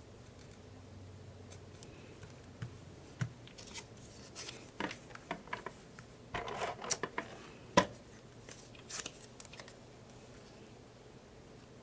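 Paper pieces being handled: scattered rustles and light clicks, the loudest a single sharp click about eight seconds in.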